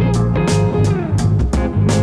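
Background music: guitar-led band track with bass and drums keeping a steady beat.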